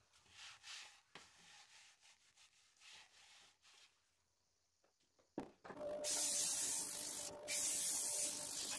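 Sandpaper rustling as it is handled, a single knock about five seconds in, then 80-grit sandpaper held against a spinning sycamore vase on a wood lathe: a steady loud hiss over the faint hum of the running lathe.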